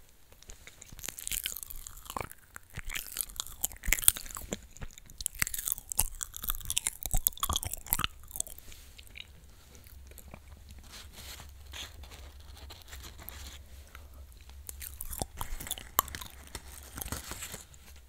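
Close-miked chewing of a crisp Loacker cream wafer, loud crunching for the first several seconds, softer chewing in the middle, and another run of crunches near the end.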